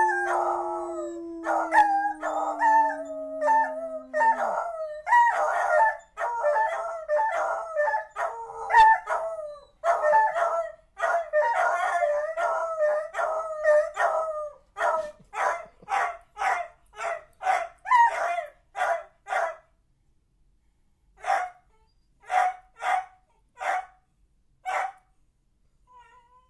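Two beagles howling together, their howls overlapping, with one lower long howl sliding down in pitch over the first four seconds. From about fifteen seconds the howling breaks into short separate bays, and near the end only a few spaced bays remain before it stops.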